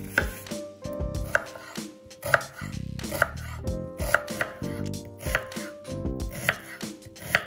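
Chef's knife slicing a red onion on a wooden cutting board, each cut ending in a knock of the blade on the board, about once a second.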